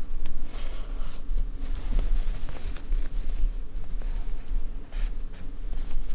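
Soft, irregular scratching and rustling of acrylic yarn being drawn through crocheted fabric with a yarn needle while the piece is handled, over a steady low hum.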